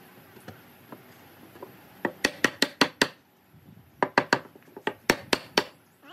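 Sharp wooden knocks in two quick runs, about five strikes, a pause, then about seven more: a wooden chair upright being knocked down into its joint in the curved base.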